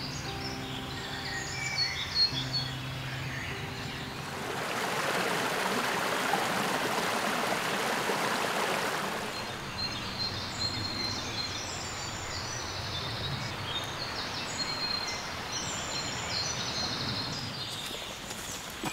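Woodland birds singing and chirping, with an even rushing of stream water from about four seconds in until about halfway. A low steady hum sounds under the birds for the first few seconds.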